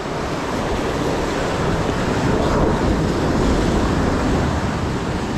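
Waves washing against a rocky shore mixed with wind on the microphone: a steady rushing noise that swells a little midway.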